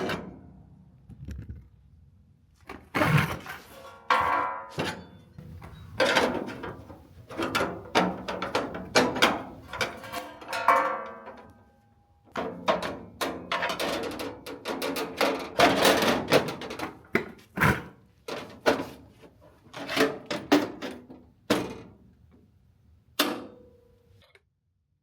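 Steel rocker panel and pillar bracing being handled and knocked into place on a truck body: an irregular run of clanks and thunks, some ringing briefly.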